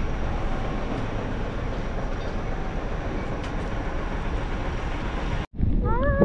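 Steady engine and road rumble heard inside a moving highway bus, cut off abruptly near the end.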